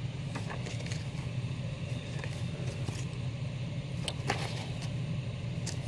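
Comic books being handled out of a shipping box: a few faint paper rustles and light taps, over a steady low hum.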